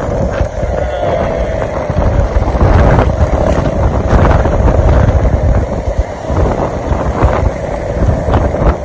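Wind buffeting the microphone: a loud low rumble that swells and dips, over a steady hum.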